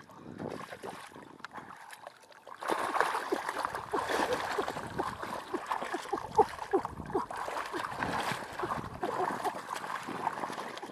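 Hands and body splashing and sloshing through shallow muddy water, with gurgling, popping bubbles, as someone gropes in the mud for fish by hand. It starts about two and a half seconds in and keeps going, busy and uneven.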